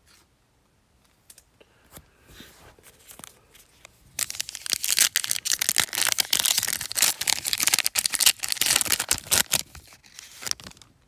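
Plastic shrink-wrap and foil trading-card packs from an NBA Hoops Premium Stock blaster box being torn open and crinkled by hand. There are faint rustles at first, then loud, dense crackling from about four seconds in that dies down near the end.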